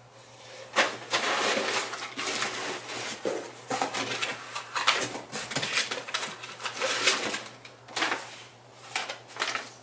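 Crumpled brown packing paper rustling and crinkling as hands dig through a cardboard box, in irregular crackles with a few sharper clicks.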